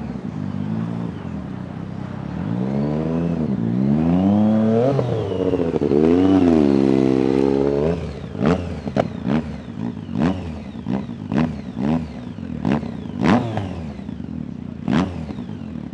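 Ape Proto's Triumph 675 three-cylinder motorcycle engine revved up and down twice, then blipped sharply about ten times in quick succession.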